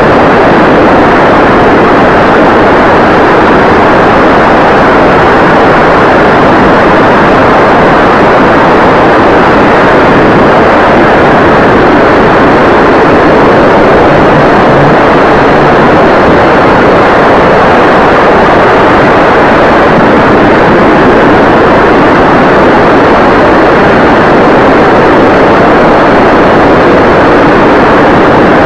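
Motor and propeller of a foamboard RC plane heard through the microphone of an onboard 808 keychain camera: a steady, loud, overdriven rush of prop and wind noise with a faint high whine above it.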